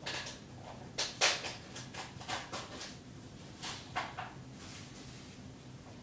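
A dozing Irish setter snuffling through her nose in short, soft puffs. They come in irregular runs: a dense run in the first few seconds and a shorter one about four seconds in.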